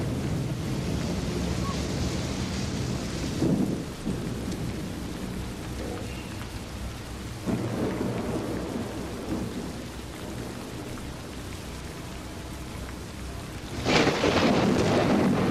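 Steady rain with a continuous low rumble of thunder. The thunder swells about three and a half seconds in and again near the middle, and rolls loudest near the end.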